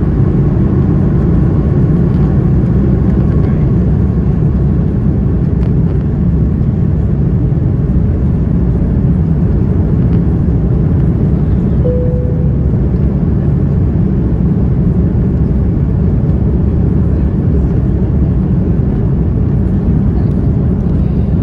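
Cabin noise of an Airbus A330-300 at takeoff thrust, its Rolls-Royce Trent 700 engines heard from a window seat over the wing as the aircraft rotates and climbs away: a loud, steady, low-pitched rush. About halfway through, a brief clear tone sounds over it.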